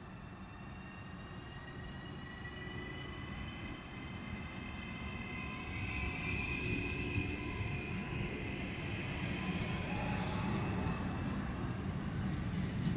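Hitachi Rock double-deck electric train pulling in along the platform: the electric traction equipment whines in several tones over the rumble of the wheels on the rails, getting louder as the train comes alongside.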